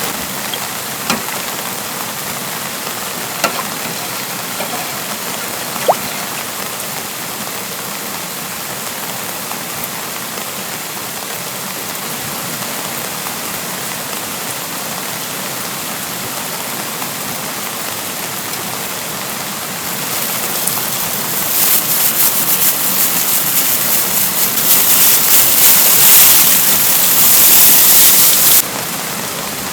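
Steady spring rain with a valley stream rushing beneath it, and a few single drips in the first few seconds. About twenty seconds in, a louder, denser patter of raindrops on a surface starts and cuts off suddenly near the end.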